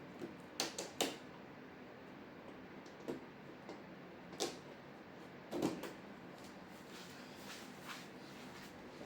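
About five light knocks and clicks of plastic parts being handled and set in place, the loudest about a second in and again past halfway: the diffuser and filter sheets of an LCD TV's backlight being fitted back into the frame.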